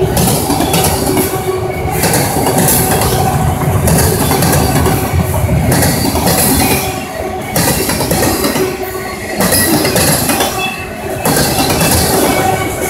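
CSX freight train of autorack cars passing close at speed: steady rumble and rattle of steel wheels on the rails, with a hiss that swells and fades every second or two as the cars go by.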